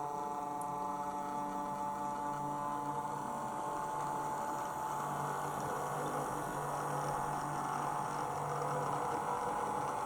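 Bachmann OO gauge Class 08 shunter model's electric motor and gears whining steadily as it climbs an incline from a standing start.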